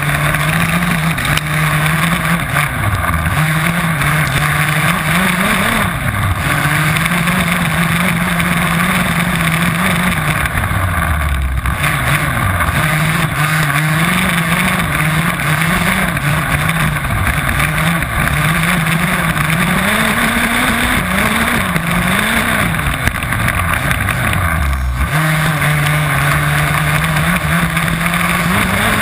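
Two-stroke petrol engine of an HPI Baja 5B 1/5-scale RC buggy, heard close up from the car itself, held at high revs and dropping in pitch several times as the throttle is let off, then climbing back as it is opened again.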